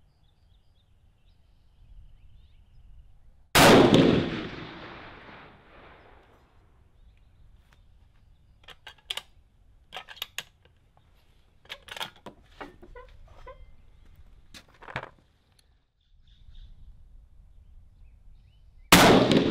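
Two rifle shots from a 6.5 Creedmoor bolt-action rifle with a 22-inch carbon-fibre barrel, about fifteen seconds apart, each followed by a long fading echo. Between them comes a handful of sharp metallic clicks and clacks as the rifle is handled, the loudest near the end of that stretch.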